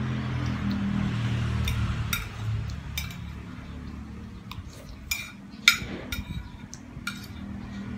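Metal spoon clinking and scraping against a ceramic plate while eating, several separate sharp clinks, the loudest about three-quarters of the way through. A low steady hum sits underneath in the first few seconds.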